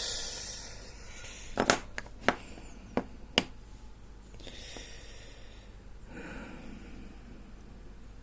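Four sharp clicks and taps of small tools and parts being handled and set down on a desk, with a breathy exhale at the start and two softer hissing breaths later.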